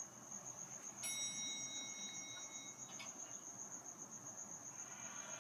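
Cricket chirping: a steady, high, rapidly pulsing trill. From about a second in, a chime-like tone rings for about two seconds and ends in a click.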